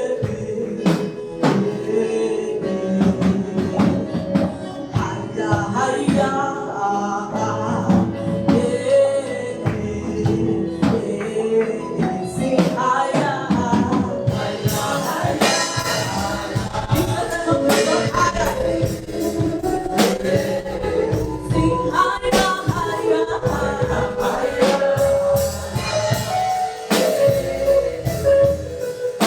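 Gospel praise song: a choir and lead singers with a band, tambourine and drums keeping a steady beat, the percussion growing busier about halfway through.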